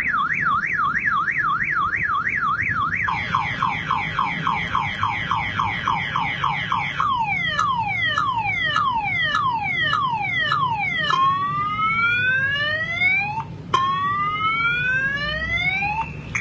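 Car-alarm siren sound cycling through its tones: a fast up-and-down warble, then from about three seconds rapid falling chirps, slowing into longer falling sweeps, and from about eleven seconds long rising whoops. A steady low hum runs underneath.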